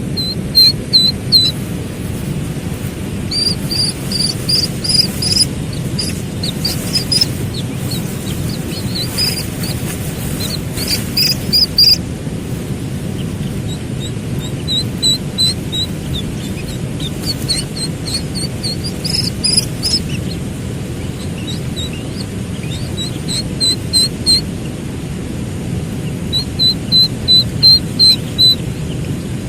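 Slaty-legged crake chicks calling: runs of short, high peeping chirps, several quick notes at a time, repeated again and again over a steady low background hiss.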